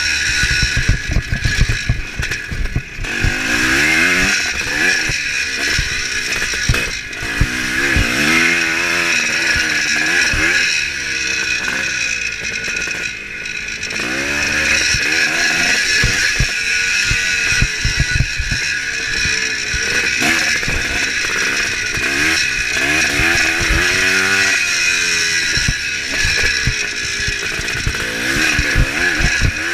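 1975 Kawasaki KX400's two-stroke single-cylinder engine at race speed, revving up and falling back again and again through the turns, with dull knocks scattered throughout.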